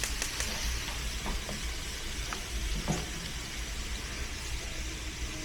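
Food sizzling in a frying pan: a steady hiss with a few light clicks.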